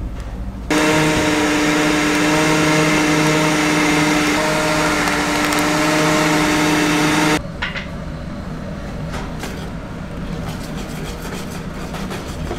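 Electric blender motor running steadily. It starts abruptly about a second in and cuts off after about seven seconds. After that come light clicks and taps of a wire whisk stirring green vegetable liquid in a steel bowl.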